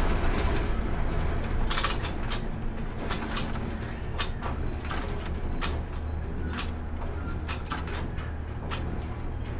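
Steady low hum of a ship-to-shore container crane's machinery, heard from the operator's cab as the spreader lowers a container into the ship's hold, with scattered sharp clicks throughout.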